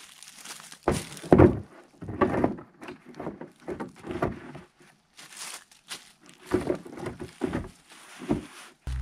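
Hollow plastic IBC tote cap being set down on a tote of stacked firewood and shoved into place: a run of irregular thuds and scraping, plastic knocking and rubbing against the split wood.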